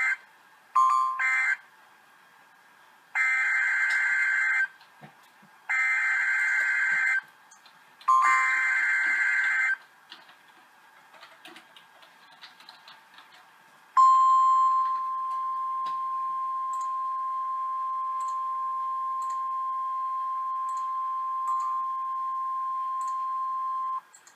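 NOAA Weather Radio emergency alert signalling. It opens with short bursts of screeching digital data, then three longer bursts of the same screech about a second apart: the SAME header coding a new alert, here a severe thunderstorm warning. After a few seconds' pause comes the steady 1050 Hz warning alarm tone, held for about ten seconds and stopping abruptly.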